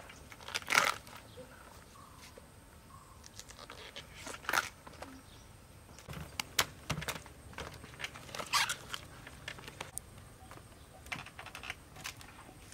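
Banana flower bracts being peeled off by hand: short tearing, crinkling rustles about a second, four and a half and eight and a half seconds in, with scattered light clicks and taps as the blossoms are handled and set in a woven bamboo basket.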